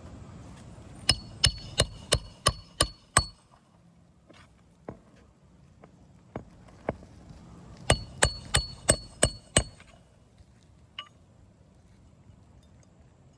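Roofing nails being hammered into asphalt shingles: two quick runs of sharp metallic strikes, about three a second, seven and then six blows. A few single softer knocks fall between and after.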